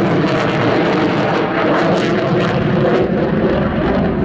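Loud, steady jet noise from an F-16 fighter flying a tight aerobatic turn.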